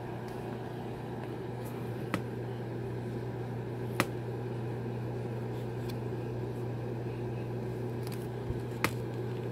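Steady low hum of a small electric motor, with a few faint clicks about two, four and nine seconds in.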